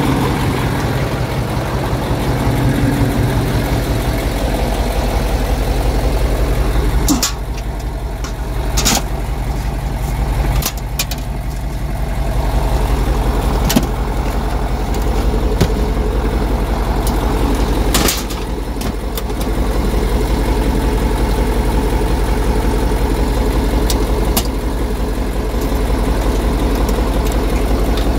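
Heavy truck engine running steadily, heard close up from outside the cab, with a strong low hum. Its note drops briefly three times, and sharp knocks and rattles of the truck's body come through now and then.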